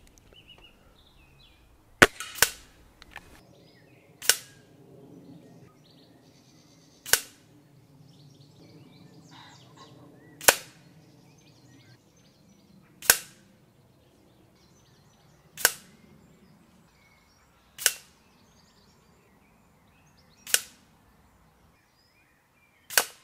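Spring-powered BSA Lightning XL SE air rifle with a built-in silencer firing pellets: about ten sharp cracks, roughly every two to three seconds, the first two close together.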